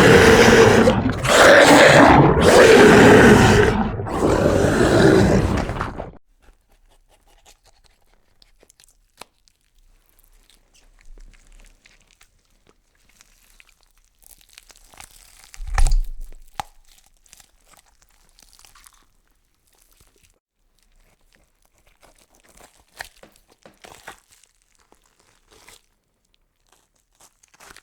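Horror sound effect: a loud monster-like growl in several long bursts that stops about six seconds in, followed by faint scattered crunching and crackling with a single low thud near the middle.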